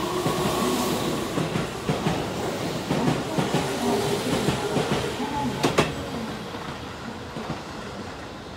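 Keihan 3000 series electric train running past the platform at speed, its wheels clattering over the rail joints; the running noise fades after about six seconds.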